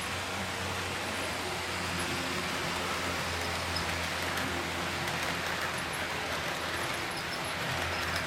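HO-scale model train running past: the locomotive's motor hums steadily while the cars' wheels run along the track, with faint clicks near the end.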